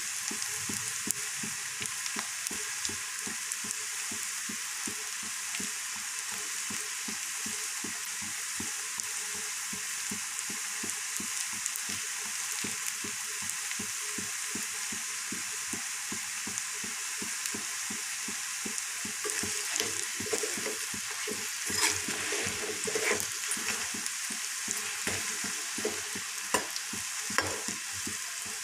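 Battered cauliflower pakoras deep-frying in hot oil in a karahi, a steady sizzle. In the last third, a few sharper clicks and scrapes come from a spatula moving the pakoras in the pan.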